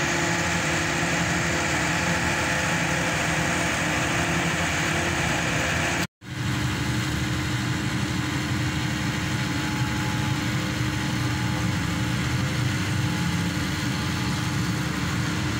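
Engine of a hydraulic static pile driver running steadily, with a constant drone and a few held tones, broken by a momentary dropout about six seconds in.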